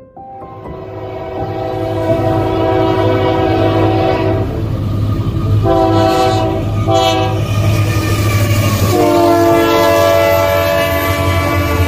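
Horn of Union Pacific 7444, a GE C45ACCTE diesel locomotive leading a freight train, sounding a long blast, two short blasts, then another long blast that dips in pitch as the locomotive passes close by. A steady low diesel rumble from the locomotives runs under the horn and grows louder over the first two seconds as the train approaches.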